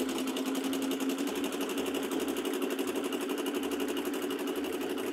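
Home sewing machine running at a steady speed, its needle going up and down in rapid, even strokes while zigzag stitching.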